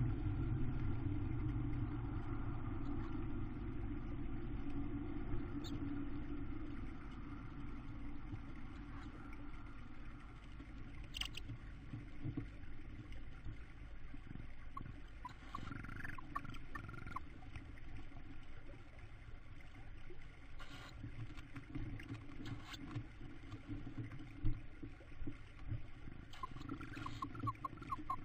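Tawny owl nest box: a steady low rumble that eases off over the first few seconds, under soft rustles and bumps as the female and her downy chicks shift on the wood chips. Brief high cheeping calls from the owlets come about halfway through and again near the end.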